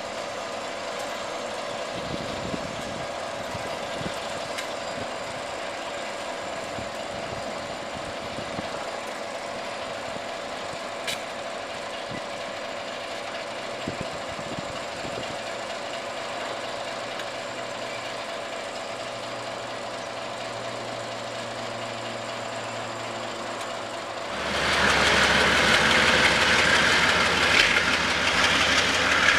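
Diesel locomotives running with a steady engine hum. About 24 seconds in, the sound cuts to a much louder, close rumble of KiwiRail diesel-electric locomotives hauling a freight train past.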